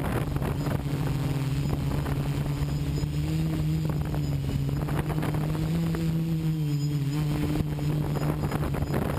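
Quadcopter's electric motors and propellers buzzing steadily as heard from the camera mounted on it, the pitch wavering slightly up and down as the throttle changes.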